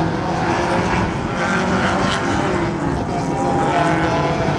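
Several folkrace cars' engines running and revving together around the track, their overlapping engine notes rising and falling.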